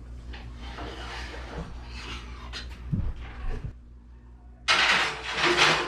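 Kitchen handling noises: a soft rustling, a couple of low knocks about three seconds in, then a louder burst of rustling lasting about a second near the end.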